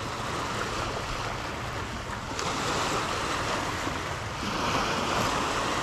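Small choppy waves washing and splashing over the rocks at the water's edge, with wind rumbling on the microphone.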